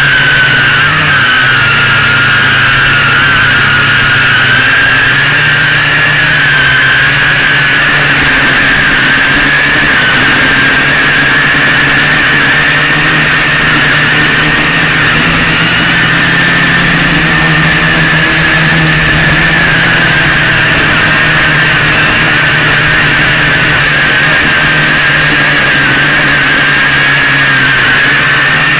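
FPV quadcopter's electric motors and propellers whining steadily, heard up close on board, the pitch wavering slightly with the throttle as it climbs.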